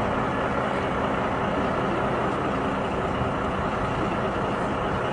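Motor vehicle running steadily, with a continuous engine and road noise.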